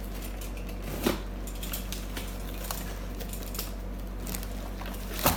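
Hands handling the inner packing of an unboxed package: scattered small ticks and rustles, with a sharp knock about a second in and a louder one near the end, over a steady low hum.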